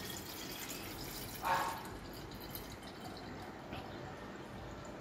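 Cold water poured from a jug in a thin stream into the narrow neck of a stainless steel water bottle, filling it. There is a brief louder splash about one and a half seconds in.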